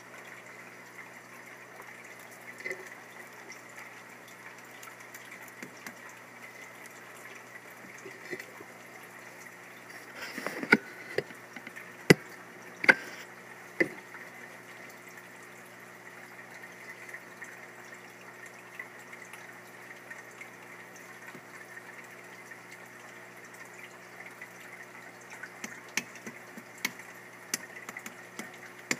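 Steady hum and hiss with a faint watery quality, broken by a few sharp clicks and taps: a cluster of them about ten to fourteen seconds in, and a few more near the end.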